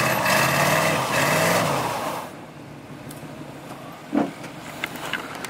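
A truck's engine revving up and down while a wheel spins in tall grass: the truck is high-centered and its wheels get no traction. The revving stops a little over two seconds in.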